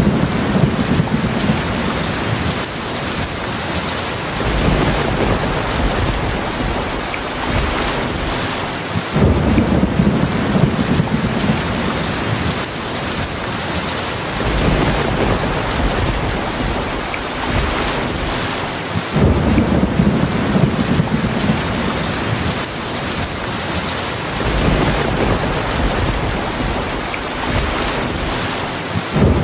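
Heavy rain falling steadily, with low rolls of thunder rumbling up about every ten seconds.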